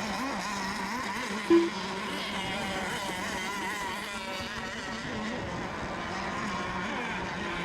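Engines of several radio-controlled race boats running and revving, their pitches wavering up and down as the boats circle during the milling period before a race start. A short, loud horn beep comes about one and a half seconds in.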